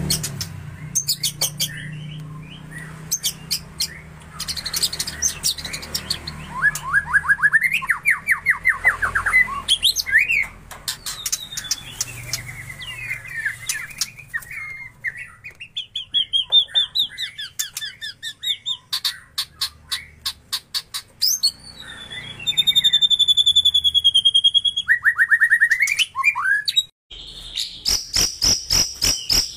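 White-rumped shama (murai batu) singing a loud, varied song of whistles, quick rising note series, runs of sharp clicks and a held high note. Near the end a second shama gives a fast, evenly spaced high ticking trill, about four notes a second.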